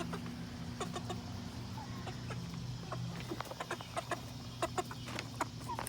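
Hens clucking in short, scattered notes over a low steady hum.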